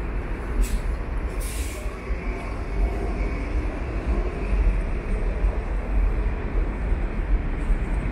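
Steady rumble of city street traffic, with two short hisses of air, a brief one about half a second in and a longer one about a second and a half in, from a bus's air brakes.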